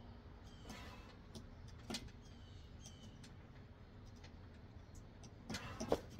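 A man's heavy exhales while doing bodyweight dips, with a louder strained breath near the end as he finishes the set. Under it runs a low steady rumble, and a few faint bird chirps sound early on.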